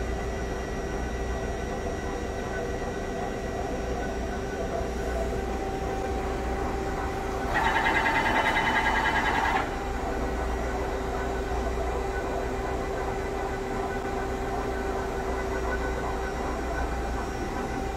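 Kingston LC38X160 CNC lathe running under its program, with a steady machine hum and fixed whines from its drives. For about two seconds near the middle, a louder warbling high-pitched sound rises over the hum, then drops away.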